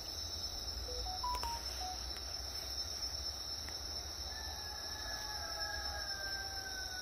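Night insects, crickets among them, chirring steadily in a high continuous pitch, over a faint low rumble.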